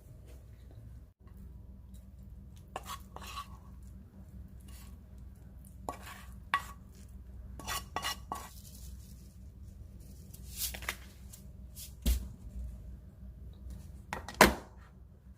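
Dishes and cooking utensils clinking and knocking now and then during kitchen work, over a steady low hum. The loudest knock comes near the end.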